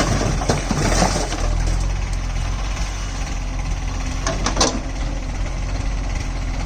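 Mahindra Arjun 555 tractor's diesel engine running with a steady low drone, with a few short knocks or clatters about a second in and again after about four seconds.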